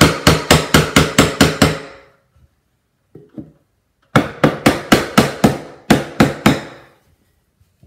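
Hammer blows on a scrap wooden block held against crown molding, knocking the loose molding tight where it doesn't fit. The blows come quickly, about four a second, in two runs: the first stops about two seconds in, and a second run of about ten blows starts about four seconds in.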